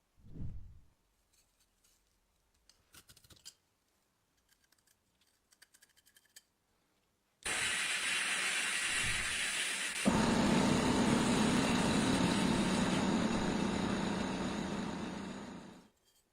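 A power tool's motor starts and runs steadily for about eight seconds, getting fuller and lower partway through as it works, then spins down. Before it come a soft knock and a few light clicks of metal parts being handled.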